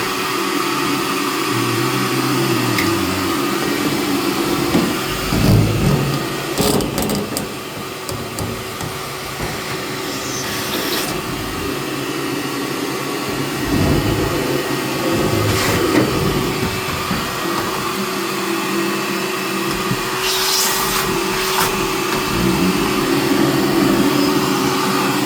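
Vacuum cleaner running steadily, with a few knocks and scrapes partway through as the nozzle works over the furnace.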